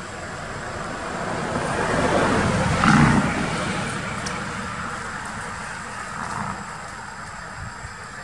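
A motor vehicle passing on the road: its engine and road noise swell, peak about three seconds in, then fade away.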